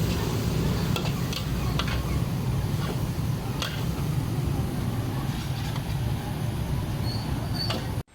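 Street ambience: a steady low rumble of traffic with scattered short clicks and clinks. It cuts off abruptly at the end.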